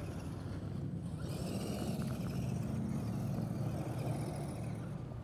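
Electric RC rock crawler driving over dirt, its motor and gears whining and wavering in pitch with the throttle, over a steady low hum.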